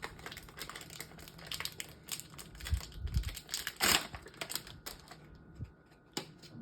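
Rapid, irregular small plastic clicks and clacks from handling a MoYu RS3M 2020 speedcube and its packaging, with one louder knock about four seconds in; the clicking thins out near the end.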